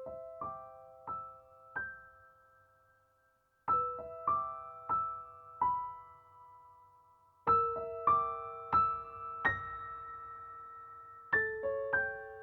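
Slow background piano music: short phrases of about four notes, each note left to ring out, with a new phrase every few seconds.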